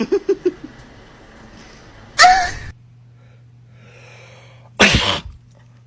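Two loud human sneezes, each a sudden burst lasting about half a second, about two and a half seconds apart; the first has a shouted vowel in it. A few quick short breathy voice sounds come at the very start.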